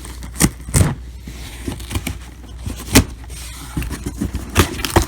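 A cardboard shipping box being handled: a few sharp knocks and scrapes, spaced irregularly, over a steady low hum.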